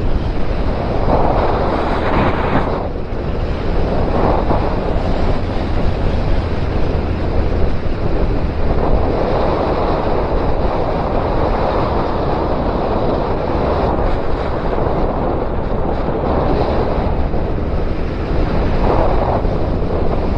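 Wind rushing and buffeting over the microphone of a Suzuki Bandit 1250 motorcycle at speed, swelling and easing every few seconds, with the bike's inline-four engine a low, steady hum beneath it.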